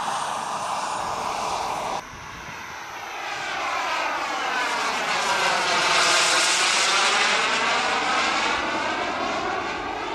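Turbine engine of a radio-controlled model jet in flight. About two seconds in the sound drops suddenly, then swells with a sweeping whoosh as the jet passes close by, loudest about six seconds in, and fades as it flies off.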